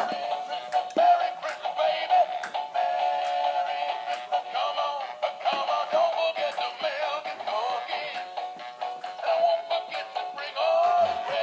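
A singing Christmas toy dog playing a Christmas song through its small built-in speaker: a synthetic-sounding voice sings over music, with a thin sound and no bass.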